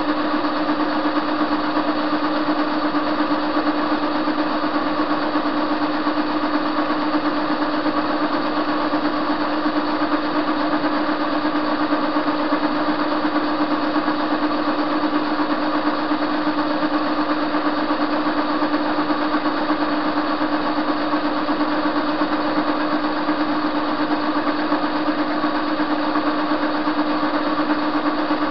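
Soviet TV-16 metal lathe running steadily while turning a metal blank. Its motor and gearing give a steady hum with one strong low tone and a fainter higher whine above it.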